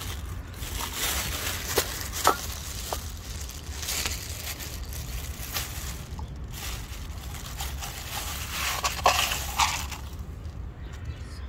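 Cats crunching dry kibble: irregular crackling chews with a few sharper cracks, two of them near the start and two about nine seconds in.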